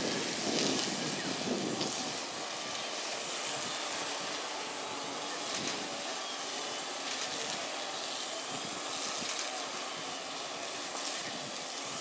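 Steady outdoor background hiss. Rustling handling noise in the first two seconds while the camera is swung about.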